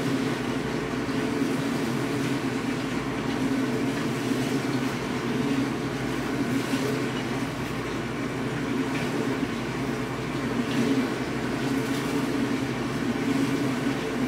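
A steady low mechanical hum, with a few faint taps over it.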